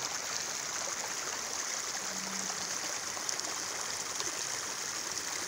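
Shallow river flowing over a stony, gravelly bed: a steady sound of running water.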